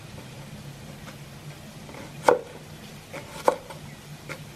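Kitchen knife slicing a white onion on a wooden cutting board: a few sharp knocks of the blade on the board, the loudest about two seconds in and another about a second later.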